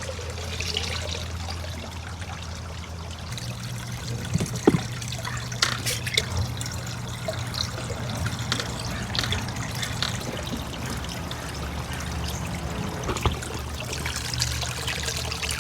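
Water trickling and splashing from a small pond pump's outflow into a goldfish tank, over a low steady hum, with a few light knocks.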